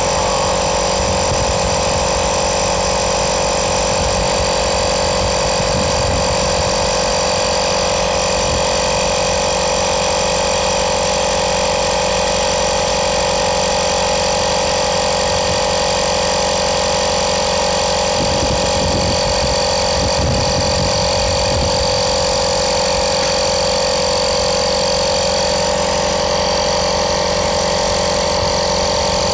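Electric air compressor from a tyre puncture repair kit running steadily, inflating a tyre that has been filled with sealant, with a constant hum. There is a brief low rumble about two-thirds of the way through.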